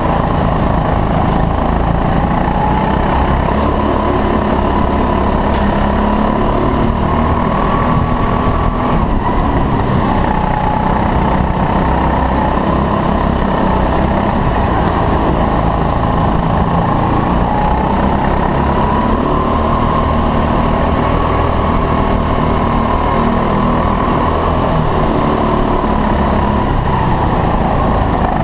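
A 6.5 PS rental kart's small single-cylinder engine running under throttle, heard on board. Its note rises and falls gently with the throttle through the corners.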